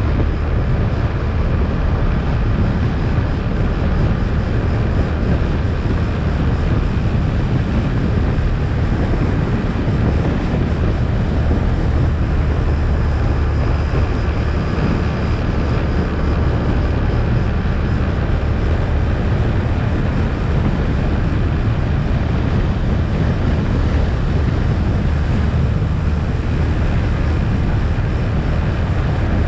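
ATV engine running steadily while riding, a constant drone with no change in level.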